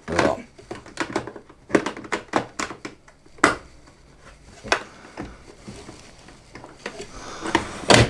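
Irregular plastic clicks and knocks from handling the detergent drawer of a Beko front-loading washing machine, with sharper knocks about three and a half seconds in and at the end.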